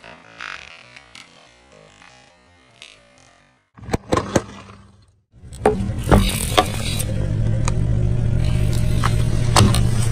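Car tyre rolling over a row of plastic baby bottles filled with coloured liquid and crushing them, with sharp cracks and pops over the steady hum of the running car. A couple of loud cracks come about four seconds in, before the hum starts.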